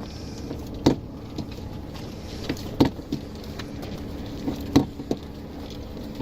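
A steady low hum with a sharp knock about every two seconds, four knocks in all, on a small sailing yacht drifting in a flat calm.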